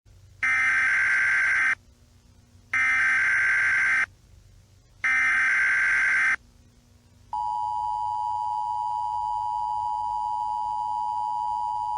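Emergency Alert System signal: three short bursts of SAME header data, each a buzzy digital chirp of just over a second with about a second's gap between. From about seven seconds in comes the steady two-tone EAS attention signal (853 and 960 Hz sounded together).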